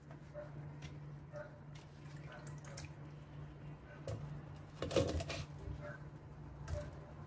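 Wet fish being handled: faint clicks and rustles, then a red porgy set down on a wooden cutting board with one short wet slap about five seconds in, over a steady low hum.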